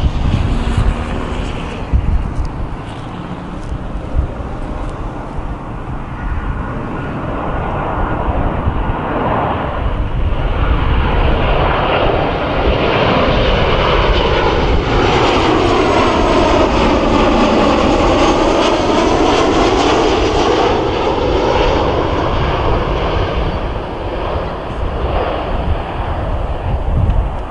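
Jet engines of a Boeing 737-800 on landing approach, its CFM56-7B turbofans passing low overhead. The sound builds to a peak over several seconds with a swirling, swooping sweep as the jet goes directly over, then fades as it heads away, over a low wind rumble on the microphone.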